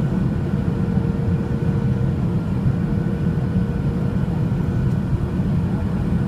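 Steady cabin noise inside a Boeing 737-700 on its approach: the drone of its CFM56-7B turbofan engines and the rush of air past the fuselage, a low rumble with a few faint steady tones above it.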